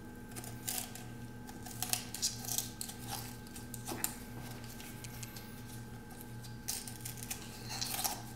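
Kitchen shears cutting along the backbone of a raw whole chicken: a series of irregular, separate snips and clicks of the blades. A low steady hum runs underneath.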